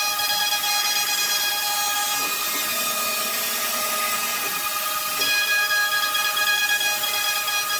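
High-speed CNC router spindle whining steadily over the hiss of the bit cutting wood, its tone dropping for a few seconds in the middle before returning.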